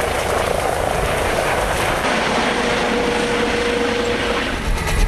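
Helicopter flying low overhead, a steady, loud rush of engine and rotor noise, with a faint steady tone rising out of it for about two seconds midway.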